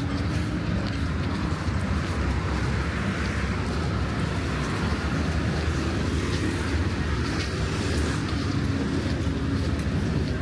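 Street traffic: vehicle engines running close by, a steady low rumble with a faint engine hum.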